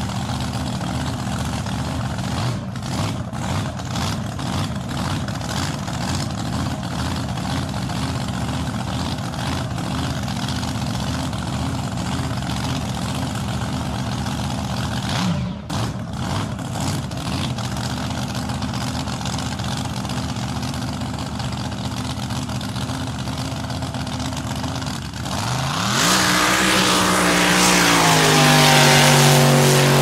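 Drag boat engine idling loud and steady, with a brief dip about halfway through. Near the end it is revved: the pitch shoots up, then slides slowly down while the engine stays loud.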